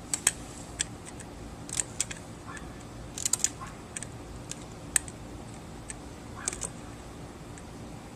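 Short, irregular scratches of a tool scraping at the wire windings of a garage door opener's electric motor, done to tell whether the windings are copper or aluminum.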